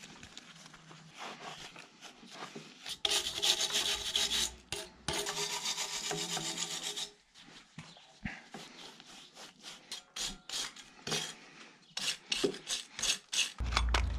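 Hand scrubbing of the grimy alloy casing of a Citroën 2CV 425 cc flat-twin engine, a rough rubbing sound that runs loudest for a few seconds in the first half, then comes in scattered strokes and a quicker run of strokes near the end, with a dull knock just before it stops.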